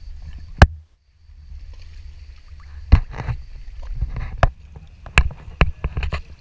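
A Prijon Seayak 500 LV sea kayak being paddled: about eight sharp, irregularly spaced knocks and splashes of the paddle and water against the hull, over a low steady rumble.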